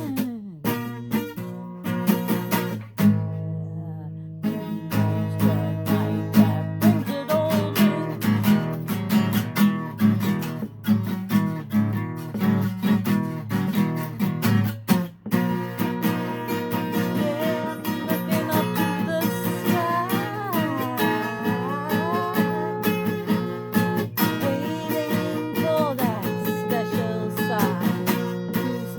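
Acoustic guitar strummed in a steady rhythm, with a man's voice singing along over it in the second half.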